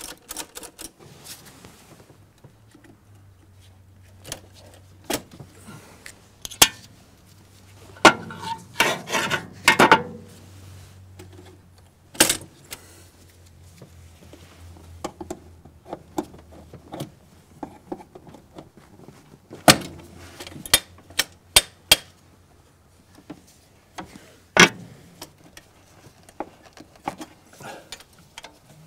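Scattered metallic clicks, clinks and knocks of hand tools and throttle-linkage parts being worked on a diesel engine. There is a quick cluster of rattling knocks about eight to ten seconds in, and sharp single clicks now and then.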